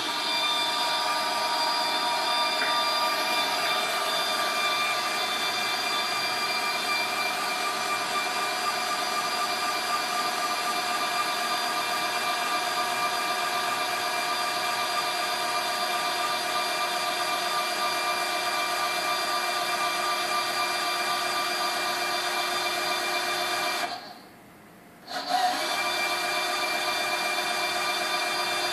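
Drive motors of a Trespa-and-aluminium five-axis CNC machine moving its axes at steady speed: a constant whine of several pitches held together. It stops about 24 seconds in, and after a second's pause starts again with a short click.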